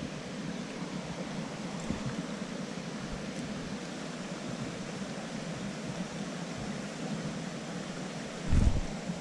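Small creek's water running steadily, with a brief low thump near the end.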